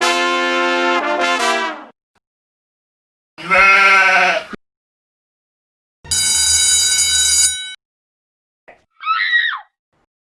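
A run of short comedy sound-effect clips, each cut off and followed by silence: a pitched note with many overtones that steps down in pitch near its end, a shorter note that bends downward, a steady held tone, and a brief high squeak of wavering pitch.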